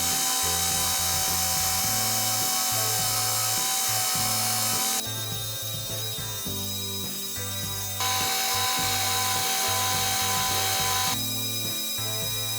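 A power tool motor running steadily with a constant whine, working wood. It drops away abruptly about five seconds in, returns about three seconds later and drops again near the end, with background music and a bass line underneath.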